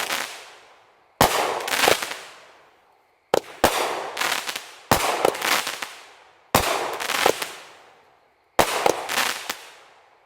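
Consumer firework cake firing a shot about every two seconds, each a sudden sharp bang that trails off over a second or so; one shot is a quick double.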